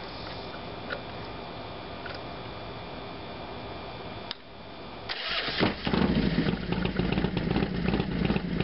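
Harley-Davidson FXDX Dyna V-twin started from cold: a click about four seconds in, then the starter cranks and the engine catches about a second later. It settles into a loud, uneven, pulsing idle.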